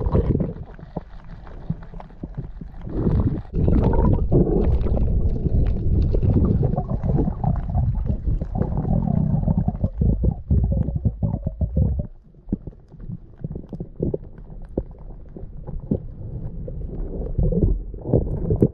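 Muffled underwater sound picked up by a camera below the surface: low rumbling water movement with many scattered clicks and crackles, louder for most of the first two-thirds and quieter near the end.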